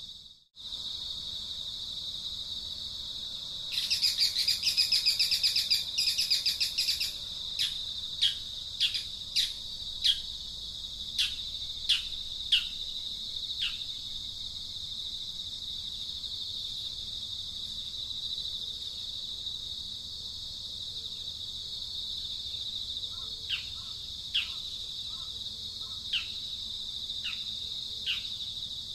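Steady high insect buzz, with bird calls over it: a rapid rattling trill from about four seconds in that lasts some three seconds, then a run of short, sharp notes that slide downward, about one a second, with a few more near the end.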